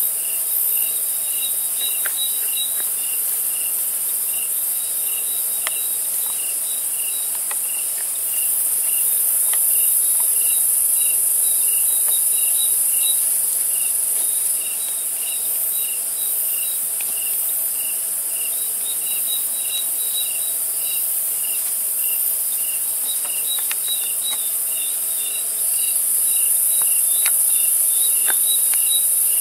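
Night chorus of crickets and other insects: a steady, very high-pitched trilling that swells louder twice, over a separate chirp repeating about twice a second.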